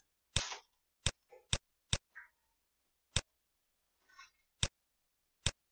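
Six sharp, single clicks at uneven intervals, from the pen or mouse being used to write on a digital whiteboard.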